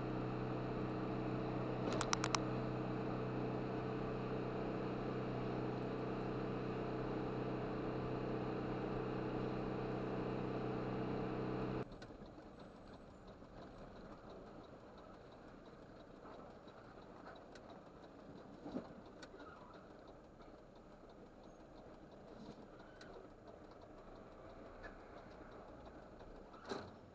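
Lorry's diesel engine running steadily at road speed, heard from inside the cab as a steady drone, with a short burst of clicking about two seconds in. About twelve seconds in the sound drops abruptly to a faint low rumble.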